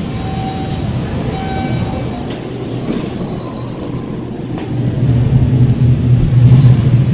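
Hydraulic elevator with sliding stainless-steel doors: mechanical running noise with a few clicks, then a strong, steady low hum that swells in about five seconds in.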